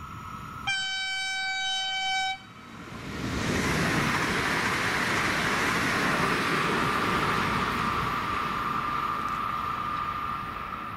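Alstom ETR 104 Trenitalia Pop electric multiple unit sounding one horn blast of about a second and a half, then passing at speed: a loud rush of wheel and air noise that builds about three seconds in and eases off near the end.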